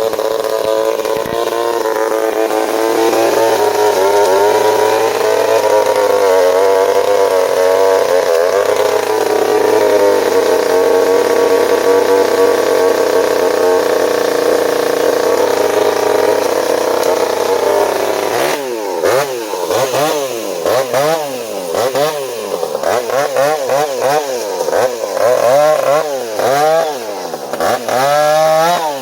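Two-stroke chainsaw held at full throttle at a steady pitch, cutting wood. After about eighteen seconds the engine note starts dropping and climbing again and again, about once a second, as the throttle is worked on and off.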